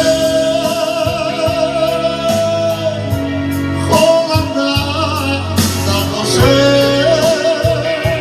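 A song: a singer holds long notes with vibrato, one after another, over an instrumental backing.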